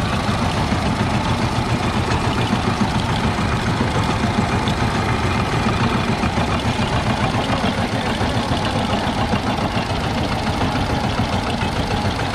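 Small single-cylinder diesel engine running steadily with a fast, even beat, driving a sugarcane juice press through a belt and pulleys while cane is crushed between its steel rollers.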